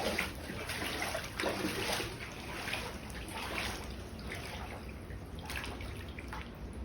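Floodwater sloshing and splashing, a run of irregular soft splashes that thin out toward the end.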